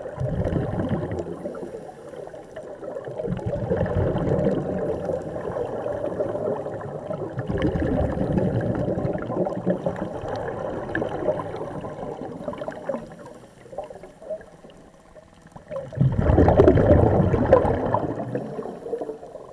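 Scuba divers' exhaled air bubbling from their regulators underwater, heard as four long bursts of gurgling a few seconds each, with a quieter lull of a couple of seconds before the last burst.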